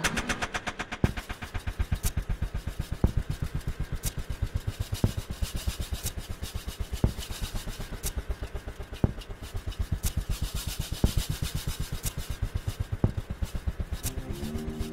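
Percussion soundtrack: a rapid, even run of light drum hits with a sharper accent once every second. Near the end a low held tone comes in and steps up in pitch.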